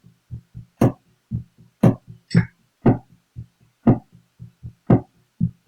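A percussive drum beat played on an electric guitar with the tone knob turned toward bass. A loud, crisp snare-like hit lands about once a second, with softer low thumps between, in a steady groove.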